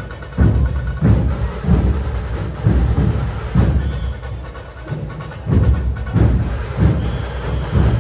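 Loud music played through a large DJ street sound system, dominated by heavy, booming bass beats that hit about twice a second.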